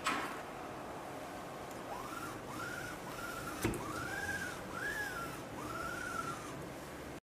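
Stepper motors of a Wanhao Duplicator 9 3D printer moving in short runs, about five whines that each rise and then fall in pitch as the motor speeds up and slows down. There are sharp clicks near the start and about halfway through, and the sound cuts off suddenly near the end.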